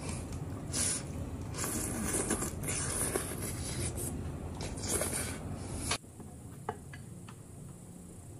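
Close-miked slurping and sucking as food is drawn out of a shell held to the mouth, in repeated wet, hissy pulls. About six seconds in the level drops abruptly to quieter eating sounds with a faint click or two.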